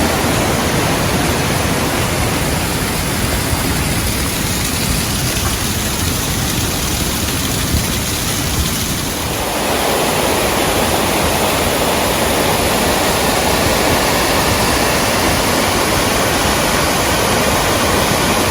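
Rushing water of a mountain stream tumbling over cascades, a loud, steady rush that swells slightly about halfway through.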